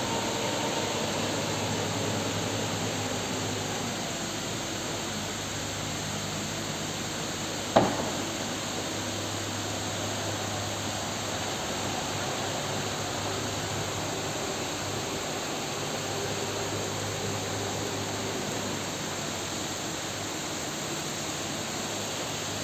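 Steady hiss of heavy rain, with an excavator's engine running underneath. A single sharp knock about eight seconds in.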